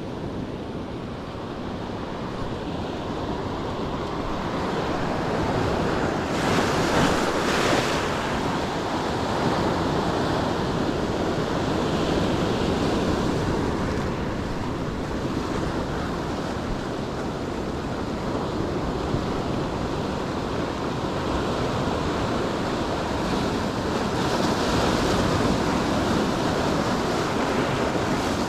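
Ocean surf: waves breaking and washing in, swelling loudest about a quarter of the way in and again near the end, with wind on the microphone.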